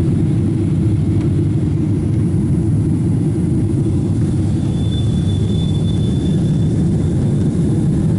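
Cabin noise of a Boeing 777-300ER in the climb after takeoff: the steady low rumble of its twin GE90 jet engines and the airflow past the fuselage. A faint high whine sounds briefly about halfway through.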